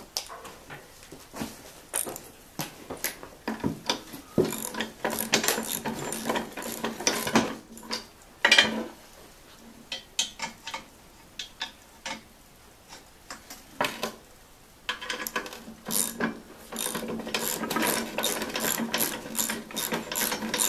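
Ratchet wrench clicking in several quick runs as lock nuts on a sawmill track-wheel bracket are tightened, with metal parts knocking in between.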